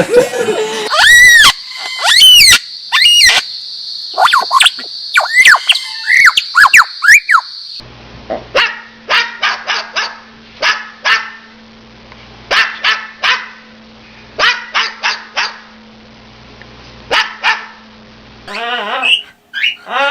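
Parrot imitating a dog's barking: short barks in quick clusters through the second half. Before them come high calls that rise and fall in pitch.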